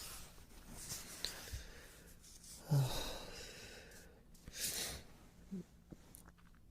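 A man breathing close to the microphone, with a low voiced sigh about three seconds in and a long exhale a couple of seconds later.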